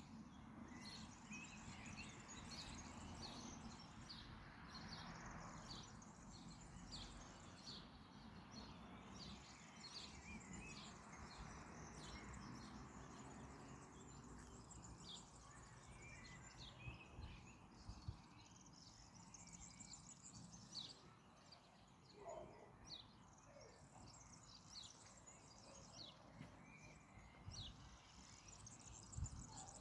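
Rain falling steadily, a soft even hiss with many short high ticks throughout.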